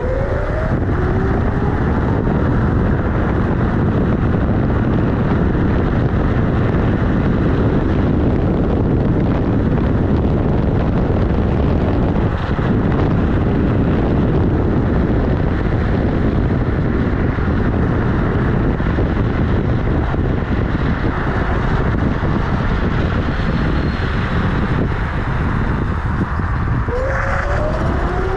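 Steady rushing noise of wind on the microphone and tyre roar from the Kugoo G-Booster electric scooter's knobbly tyre rolling on tarmac. A faint whine rises in pitch over the first second or so as the scooter picks up speed.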